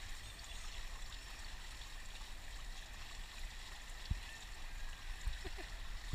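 Steady hiss and trickle of water at an outdoor swimming pool, with a couple of soft low thumps about four and five seconds in.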